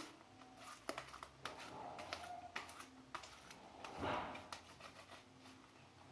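Homemade glue-and-talc slime being kneaded and worked by hand: faint sticky squishing with many small clicks, and a louder squish about four seconds in.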